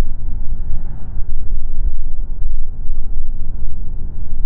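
Road and wind noise of a moving car, a steady low rumble with a quickly wavering level.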